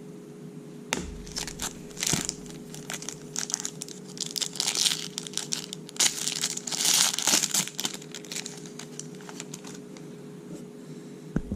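Foil wrapper of a Topps Chrome baseball card pack being torn open and crinkled, in several rustling bursts with small clicks of cards being handled.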